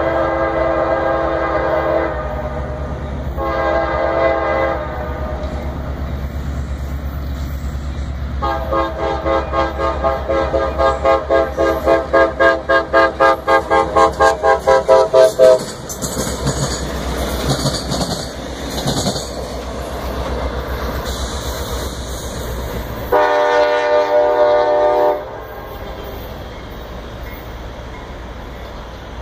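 GP38-2 diesel locomotive sounding its second-generation Nathan K5LA five-chime air horn in several blasts: one ending about two seconds in, a short one soon after, a long wavering blast from about eight to fifteen seconds, and a last blast near the end. The diesel engine rumbles under the horn, and the train's wheels rush and clack over the rails as it passes.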